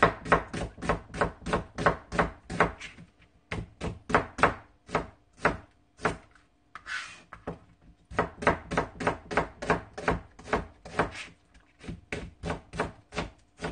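Chef's knife slicing an onion on a plastic cutting board: quick, even knocks of the blade on the board, about four a second, with a short pause about three seconds in and a longer one around the middle.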